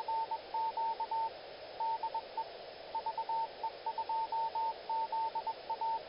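Morse code (CW): a single tone keyed on and off in dots and dashes, in uneven groups, over a steady hiss like that of a radio receiver.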